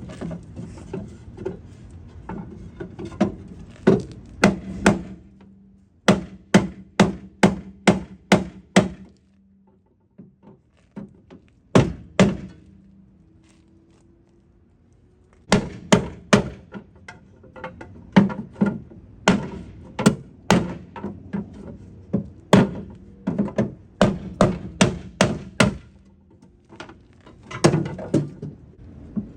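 Hammering on a car's dented rear quarter panel: runs of quick, sharp blows on the sheet metal, with a quieter pause of a few seconds near the middle.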